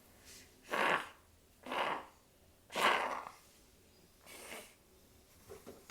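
Short, loud, noisy breaths through a congested nose: three about a second apart, then a fainter one.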